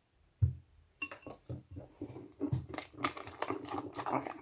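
Sticky, not fully activated slime squishing and crackling as fingers work it in a ceramic bowl, a dense run of small wet clicks that thickens towards the end. A single knock against the bowl comes about half a second in.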